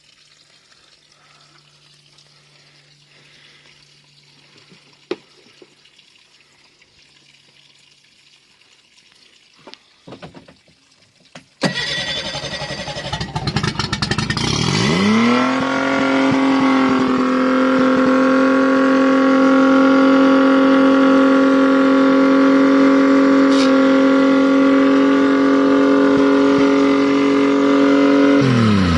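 Boat's outboard motor started for the first time after restoration: after a few short noises it catches about eleven seconds in, climbs in pitch and settles into a steady fast idle that is revving a bit high, then winds down at the very end.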